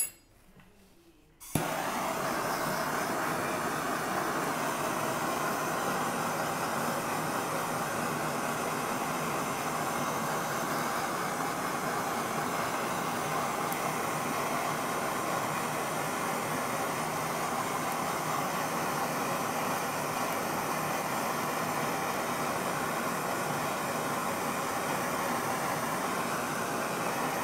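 Handheld kitchen blowtorch lighting with a click about a second and a half in, then its flame hissing steadily as it caramelizes the sugar topping of the oatmeal.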